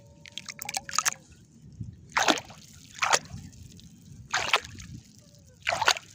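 A hand splashing and sloshing in shallow water while feeling along the muddy bottom for clams, in short surges about once a second, five in all.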